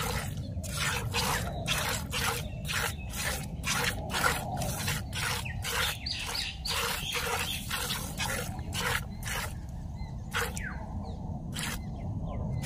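Cow being milked by hand: milk squirting from the teats into a plastic bucket in a steady rhythm of about two to three squirts a second, with a few pauses near the end.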